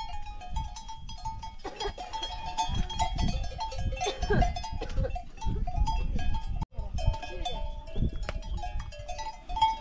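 Livestock bells on a grazing water buffalo herd clanking and ringing irregularly as the animals move and feed, over a low rumble. The sound cuts out for an instant about two-thirds of the way through.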